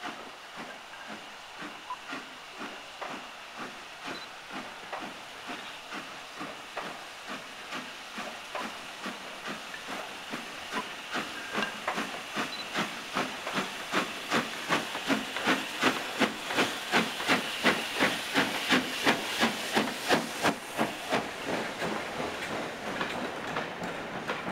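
Steam locomotive LMS 6201 Princess Elizabeth, a four-cylinder Princess Royal class Pacific, pulling away with a train: a steady run of exhaust beats over a hiss of steam. The beats quicken slightly and grow much louder as it draws near, peaking about two-thirds of the way through, then ease off a little as the coaches follow.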